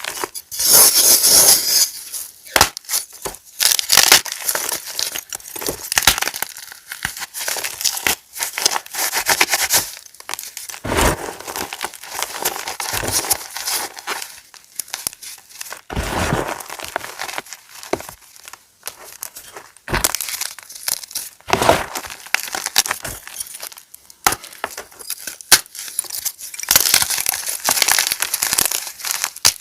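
Pieces of reformed gym chalk being crushed, crisp crunching and crumbling in irregular runs of sharp crackles with short pauses between them.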